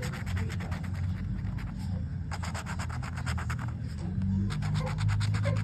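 A coin scratching the coating off a paper lottery scratch-off ticket: quick rapid strokes in three runs, with short pauses between them.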